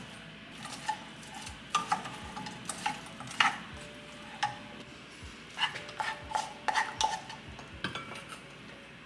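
A spatula stirring pasta and cut-up vegan chicken tenders in pesto around a saucepan, with irregular scrapes and knocks against the pan, some briefly ringing. Near the end the pasta is scraped out of the pan into a bowl.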